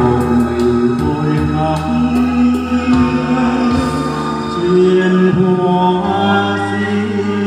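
Karaoke backing music played through a loudspeaker: a steady instrumental accompaniment of held tones.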